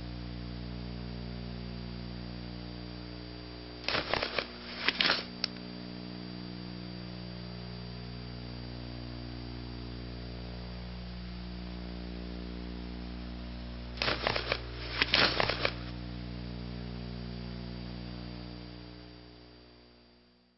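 Steady electrical hum with a thin high tone above it, broken twice by short bursts of crackling, about four seconds in and again about ten seconds later. The hum fades out near the end.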